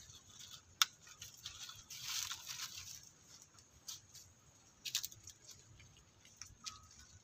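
Faint scattered clicks and a scratchy rustle from long-tailed macaques moving and scratching on a slatted wooden platform. The sharpest click is about a second in, the rustle comes in the middle, and a few more taps follow.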